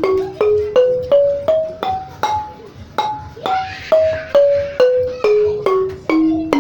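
Xylophone with calabash gourd resonators struck with mallets, playing a scale up for about two seconds and then back down, two to three notes a second, each note ringing briefly. It is being played as a test of its tuning and resonance.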